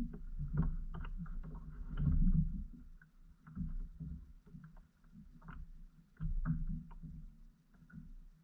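Irregular knocks, bumps and clicks in a fishing kayak as gear is handled against the hull, with the heaviest bumps about two seconds in and again past six seconds.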